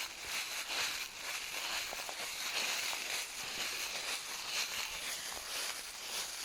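Footsteps crunching and rustling through dry fallen autumn leaves on a forest floor, a steady run of crackly steps at walking pace.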